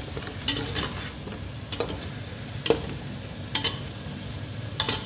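Mutton sizzling as it fries in ghee in a steel pressure cooker, stirred with a metal spoon that clinks and scrapes against the pot about six times.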